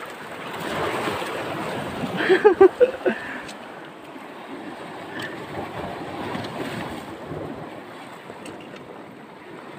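Sea surf washing over a rocky shoreline, with wind buffeting the microphone, and a few faint clicks.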